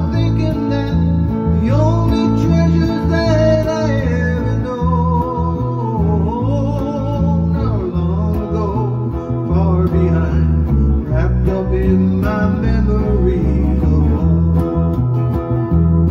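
Live acoustic guitar strumming with a second electric guitar, and a man singing over them at a steady, rhythmic pace.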